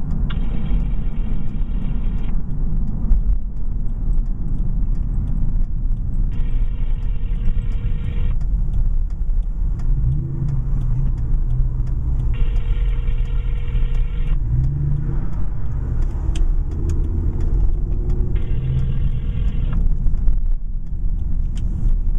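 Telephone ringback tone from a BlackBerry on speakerphone: four rings, each about two seconds long and six seconds apart, while an outgoing call waits to be answered. Steady car engine and road rumble inside the cabin runs underneath.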